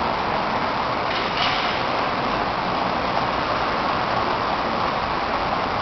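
Steady city street noise, a constant traffic hum with no single event standing out.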